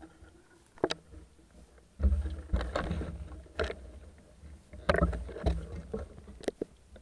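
Underwater sound picked up through a camera housing: muffled rumbling surges of water movement with a few sharp clicks and knocks as a speared fish is handled and worked off a speargun's spear shaft.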